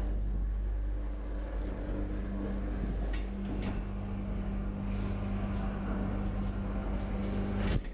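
DEVE hydraulic elevator running, its power unit giving a steady low hum with a few faint clicks, cutting off suddenly near the end as the car stops.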